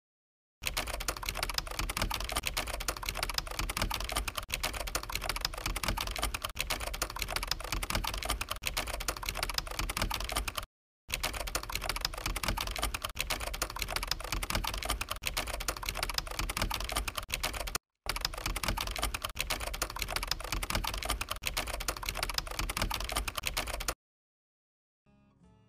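Rapid computer keyboard typing, a dense run of fast key clicks that breaks off briefly twice and stops near the end.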